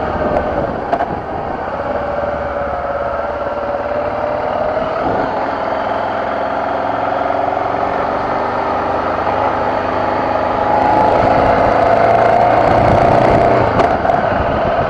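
BMW F650GS motorcycle engine running under way on a dirt track, its pitch drifting up and down with the throttle and growing louder a little over two-thirds of the way through as the rider accelerates.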